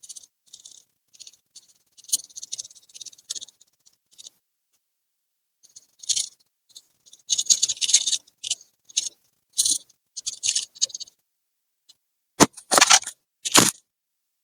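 Hands working on a laptop's plastic casing and parts: spells of scratchy scraping and rubbing, then a few sharp clicks or taps near the end.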